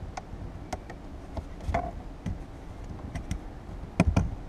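Scattered light clicks and taps of plastic interior trim and a wiring connector being handled, with two sharper knocks close together near the end.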